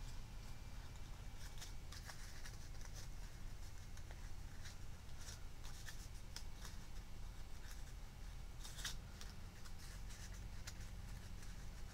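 Faint crackling and rustling of paper petals being pinched, folded and rolled between the fingers, with a louder crinkle about nine seconds in, over a low steady hum.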